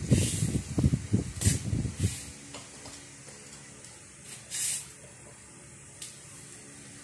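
Golden retriever puppy chewing and pawing at a paper tissue: a cluster of dull low thumps over the first two seconds, and a few short hissy rustles, the last about four and a half seconds in.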